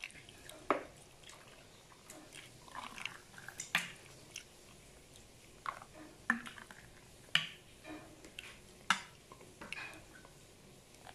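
Steel ladle scooping frothy pineapple juice from a steel pot and pouring it into a glass: a dozen or so scattered sharp clinks and taps of metal and glass, with soft pouring between them.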